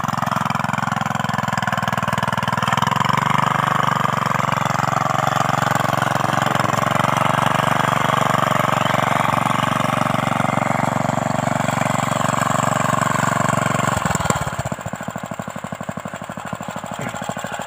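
Small single-cylinder petrol engine of a walk-behind mini cultivator (hand tiller) running steadily as it works through grassy ground, then dropping about fourteen seconds in to a slower idle with even, separate thumps. The engine is smoking, which the operators put down to too much oil being pushed past the piston and burning.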